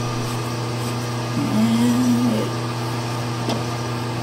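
Steady mechanical hum from shop machinery, with a short low tone about one and a half seconds in that lasts under a second.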